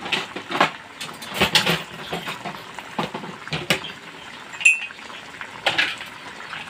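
Bagaong fish and green mango slices simmering in a metal wok with a little oil, giving irregular bubbling pops and crackles. A single short, sharp, high clink comes a little past halfway and is the loudest sound.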